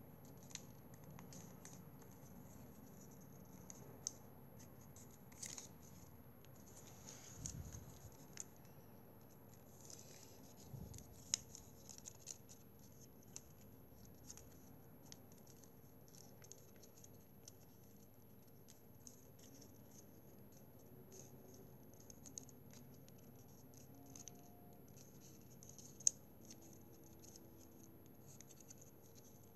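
Faint rustling and crinkling of a sheet of origami paper being folded and creased by hand, with scattered small ticks and scrapes over a faint steady hum.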